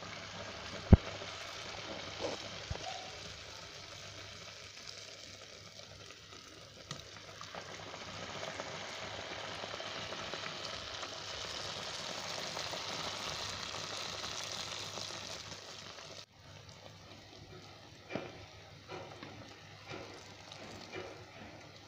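Mandazi dough frying in hot cooking oil in a metal sufuria: a steady sizzle that swells in the middle and drops off suddenly about two-thirds through. A sharp knock about a second in, and a few lighter knocks near the end.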